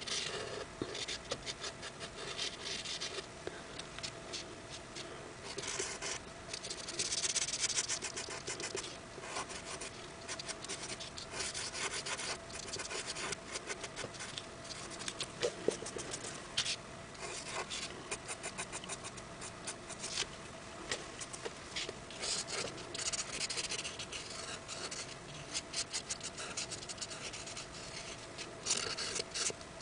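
Metallic permanent marker tip scratching across a chalky painted paper surface in many short, uneven strokes as swirls are drawn; the chalky surface drags on the tip and makes it hard to draw on.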